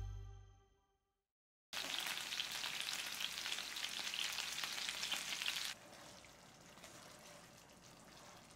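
Chicken pieces coated in crushed black pepper sizzling as they fry in hot oil in a pan. The sizzle starts about two seconds in and cuts off suddenly halfway through, giving way to the much quieter sound of the chicken being stirred in a creamy gravy with a wooden spatula.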